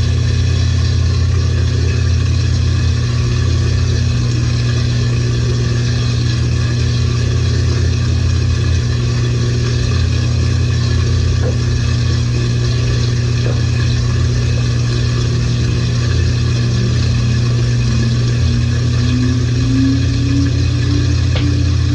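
LG 18 kg top-load washing machine on its spin cycle: a steady motor hum, with a whining tone that rises in pitch over the last few seconds as the drum picks up speed.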